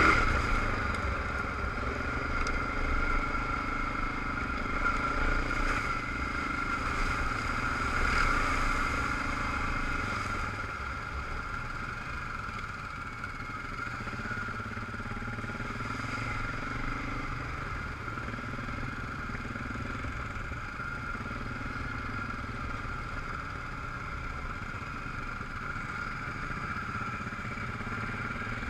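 Suzuki ATV engine running steadily under way on a muddy dirt trail, over a low rumble of wind and trail noise. It is a little louder for the first ten seconds, then eases off slightly.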